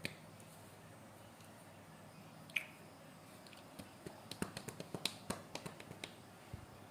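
Sharp plastic clicks from a laptop being operated by hand: a single click at the start, another about two and a half seconds in, then a quick run of a dozen or so clicks from about four to six seconds in.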